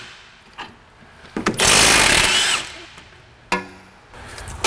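Cordless Milwaukee impact wrench hammering for a little over a second, about a second and a half in, on a front strut-to-knuckle through bolt to break it loose, its pitch rising at the end. A short sharp knock follows near the end.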